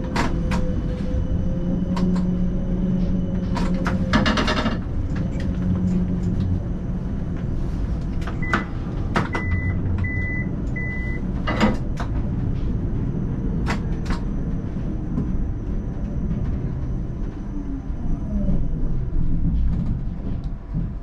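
Siemens Combino C1 tram running, heard from the cab: a steady hum and rumble from the motors and wheels on the rails, with scattered sharp knocks over the track. A few short high beeps sound around halfway, and near the end a whine falls in pitch as the tram slows.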